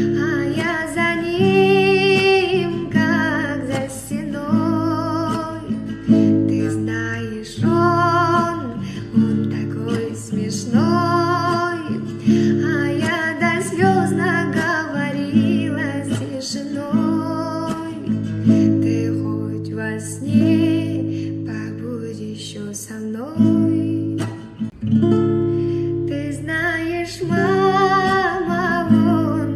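Music: acoustic guitar playing an instrumental passage of a song, with strummed chords underneath a wavering melody line.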